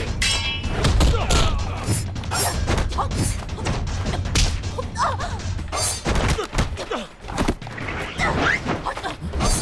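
Fight-scene sound effects: a rapid, continuous series of punch and kick impacts, thuds and whacks.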